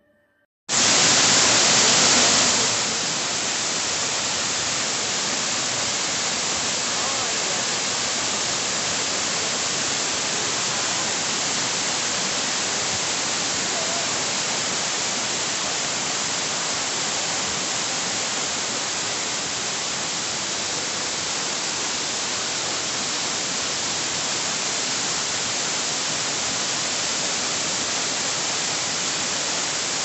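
Steady rush of a waterfall and stream, cutting in suddenly about a second in and a little louder for the first couple of seconds.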